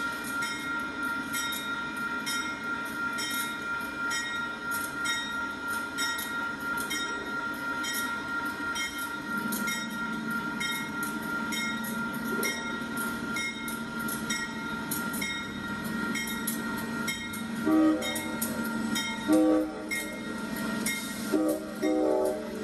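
Grade-crossing bell ringing steadily, about one strike every three-quarters of a second. A diesel locomotive's engine drone comes in about halfway through, and its horn sounds three short blasts near the end.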